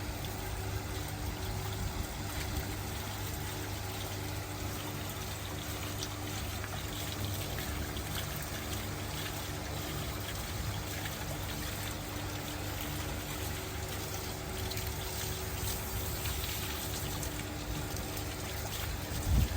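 Water pouring and splashing steadily, with a low motor hum underneath.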